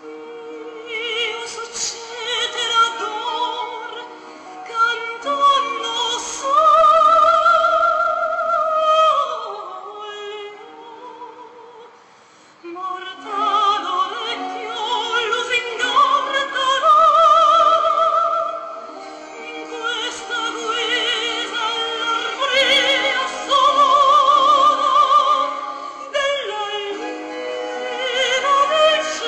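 Operatic singing with strong vibrato on long held notes, over instrumental accompaniment. The music drops quieter for a short stretch about ten seconds in, then swells again.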